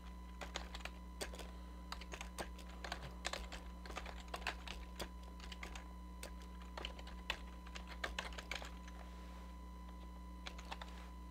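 Computer keyboard being typed on: quick irregular runs of key clicks that thin out to a few strokes near the end, over a steady low electrical hum.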